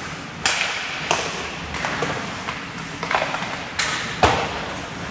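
Sharp knocks and clacks of ice hockey play, sticks striking the puck and each other and the puck hitting the boards. About seven irregular knocks over a steady rink hum, the loudest a deeper thud a little past four seconds in.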